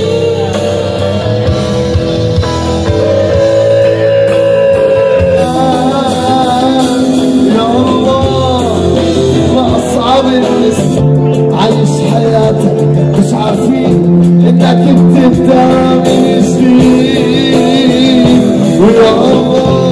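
A rock band playing live: electric guitars and drums with a singing voice, loud and continuous.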